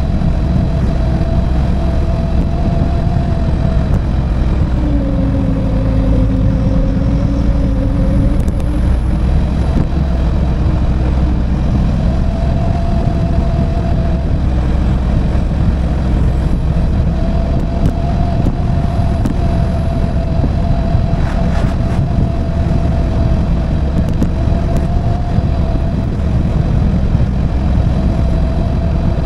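Small motorcycle engine running steadily at cruising speed while riding, with wind rumble on the microphone. The engine note drops a little about five seconds in and climbs back a few seconds later.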